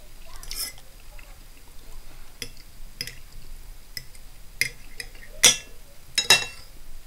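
Knife and fork clinking and scraping against a plate while cutting eggs in sauce: scattered sharp clinks, the loudest about five and a half seconds in and a quick pair just after six seconds.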